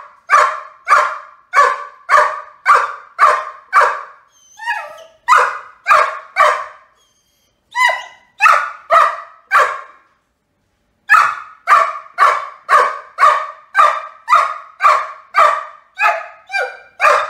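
Great Dane puppy barking up at a cat, about two sharp barks a second in runs, with a couple of short pauses and a brief higher, wavering yelp about four and a half seconds in.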